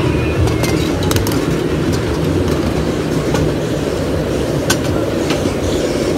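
Miniature ride-on railway train rolling along its track: a steady low rumble of wheels on rail with a few sharp clicks scattered through it.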